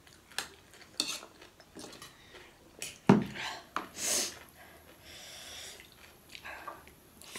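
Metal forks and spoons clinking and scraping against ceramic plates as instant noodles are twirled and lifted: a string of short clicks, the loudest and sharpest about three seconds in.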